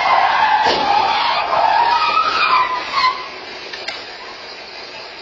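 Car collision at an intersection: a knock of impact less than a second in, with tires squealing in a wavering screech that stops about three seconds in.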